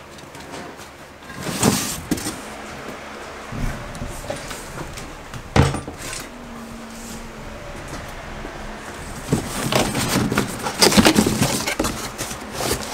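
Handling noises: a few knocks and clatters, one sharp knock about halfway through, then a louder spell of cardboard rustling and scraping near the end as a cardboard box holding a toilet is opened.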